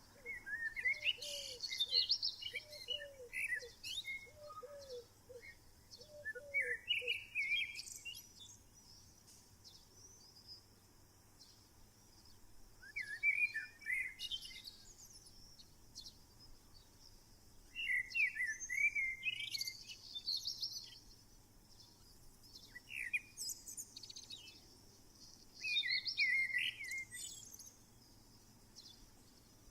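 Wild songbirds singing, with a short phrase of quick chirps every few seconds. During the first seven or so seconds a lower bird call repeats about a dozen times at an even pace.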